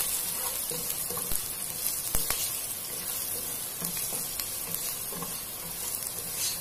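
Chopped onion sizzling in hot ghee in a non-stick pot, stirred with a spatula, with a steady frying hiss and a few light taps of the spatula against the pan.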